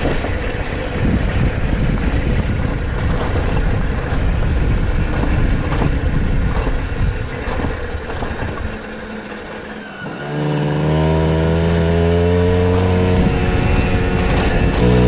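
Puch Maxi 50cc two-stroke moped running along a rough gravel track, its engine buried in rattle and wind noise. About ten seconds in the sound dips, and then the engine note comes through as a clear, steady hum that shifts in pitch in small steps.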